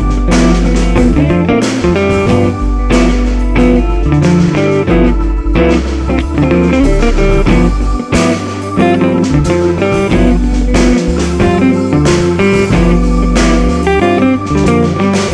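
Background music: a guitar-led instrumental with bass and a steady beat.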